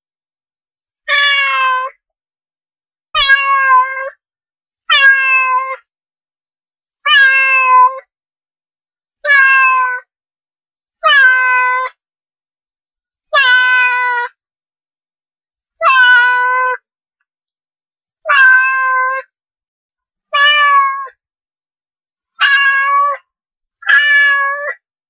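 A domestic cat meowing about a dozen times, each meow just under a second long and coming roughly every two seconds, most dipping in pitch at the end.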